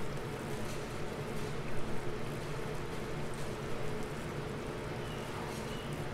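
Battered corn dogs deep-frying in oil on low heat: a steady sizzle with small crackles, over a low steady hum.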